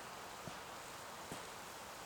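Steady faint outdoor hiss with two light clicks or rustles, the second about a second after the first.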